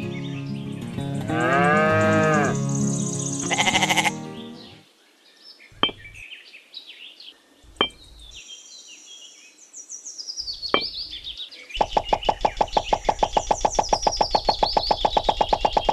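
Farm-animal calls, bleat- and moo-like, for the first few seconds. Then three sharp clicks as tiny clay bricks are set down. From about twelve seconds in, a fast, even pulsing sound.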